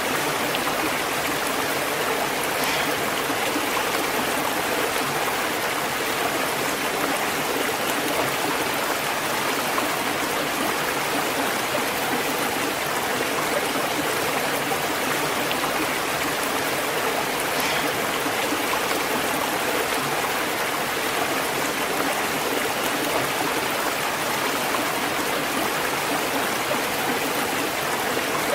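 Waterfall and rushing stream: a steady, even roar of falling and flowing water.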